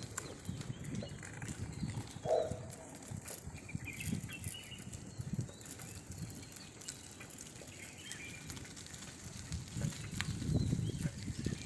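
Wind buffeting the microphone in uneven gusts, a low rumble that swells near the end. A brief pitched call sounds about two seconds in, with a few faint high chirps.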